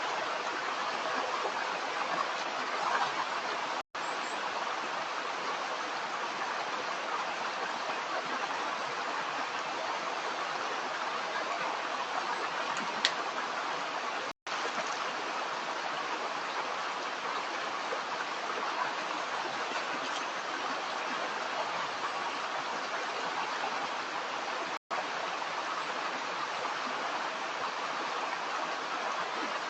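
A stream running: a steady rush of flowing water, cut by three very brief drops to silence.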